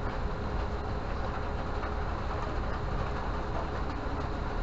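A steady low mechanical rumble with a faint constant hum, unchanging and without distinct knocks or clicks.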